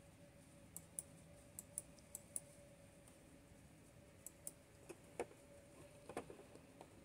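Near silence with about a dozen faint, sharp clicks at irregular intervals, some in quick pairs, over a faint steady hum.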